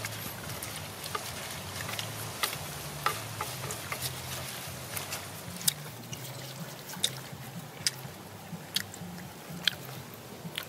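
Eating sounds: scattered sharp clicks and wet smacks as chopsticks pick through a clay pot of leafy duck salad and mouths chew.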